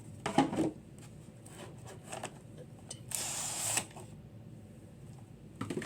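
Contents of a cardboard Elite Trainer Box being handled: a knock about half a second in, a short sliding rustle about three seconds in, and another knock near the end.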